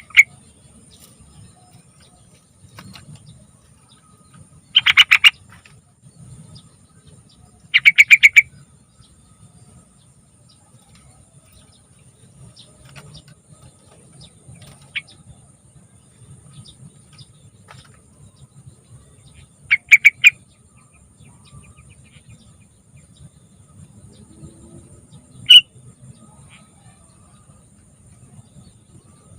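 Sooty-headed bulbul singing short, quick bubbly phrases, each under a second long, four times with long pauses between, over a faint low rumble.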